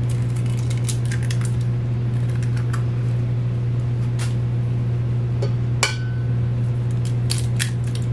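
Eggs tapped and cracked against the rim of a stainless steel mixing bowl: a scatter of sharp taps and shell cracks, the loudest about six seconds in with a short metallic ring. A steady low hum lies under them.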